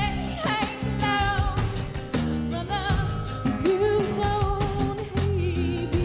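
Pop song with a woman singing over drums and bass; her voice wavers with vibrato, then holds a long note through the second half.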